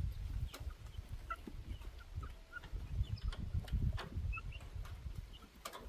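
Domestic chickens clucking: short, scattered calls from several birds, over a low rumble and a few sharp clicks.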